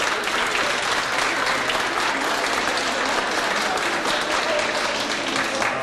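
Audience applauding, many people clapping hands at once.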